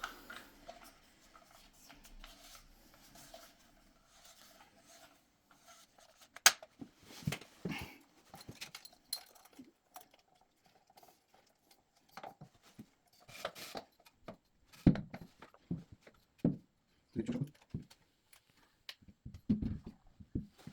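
Scattered light clicks, taps and knocks of hand tools and a metal mounting bracket being handled against a wall while measuring and marking, with one sharp click about six and a half seconds in.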